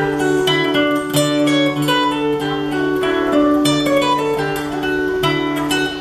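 Acoustic guitar (violão) played in a run of strummed chords, each held about a second before the next.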